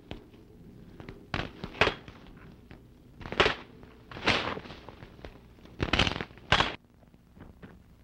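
Scrub branches rustling and twigs snapping as a man pushes through dense brush, in about half a dozen separate short bursts with a few sharp snaps.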